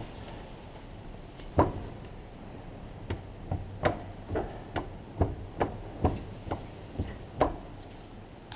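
Sharp knocking from the driveline of a VAZ-2104 (driveshaft, rear axle or gearbox): one loud knock, then a run of knocks about two a second. The cause of the knock is unknown to the owner.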